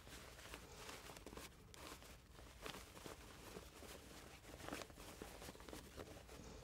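Faint, irregular rustling and soft scuffs of fabric being handled and pulled through a seam gap as a sewn cover is turned right side out.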